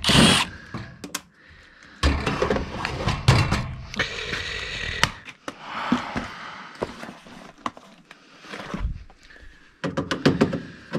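Tools clattering and clicking as hands rummage through an open tool bag, with scattered knocks and thunks and a sharp clatter at the start.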